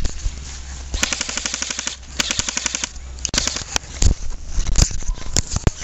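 Airsoft guns firing: two rapid automatic bursts of about a second each, then scattered single shots.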